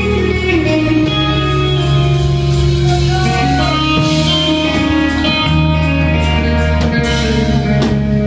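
A live rock band playing: electric guitars holding ringing chords and notes over low sustained tones, with a drum kit, and a few separate drum and cymbal hits near the end.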